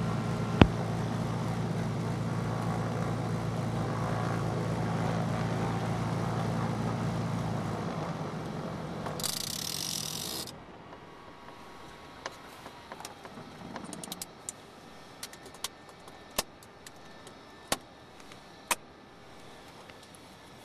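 Cessna 310's twin piston engines idling steadily, then winding down to a stop about eight seconds in. A brief hiss follows, and the sound drops to a much quieter level with scattered clicks.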